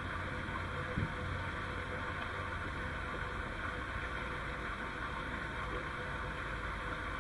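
Steady low rumble and hiss of outdoor background noise, with one soft low thump about a second in.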